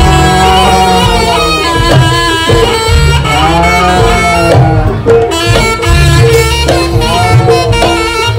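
Loud Javanese barongan accompaniment: a nasal reed shawm (slompret) plays a bending, ornamented melody over drums and gongs.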